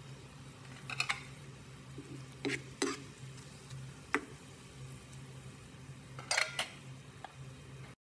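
Sliced onions, raisins and curry leaves frying in oil in a pan, with a low sizzle and several sharp clinks and scrapes of a utensil against the pan as they are stirred. The sound stops abruptly near the end.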